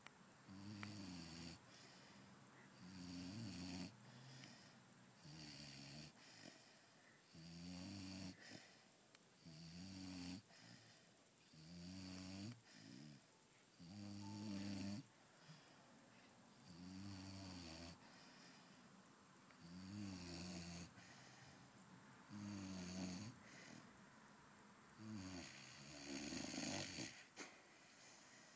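Pit bull puppy snoring in its sleep: faint, regular snores, one about every two to three seconds.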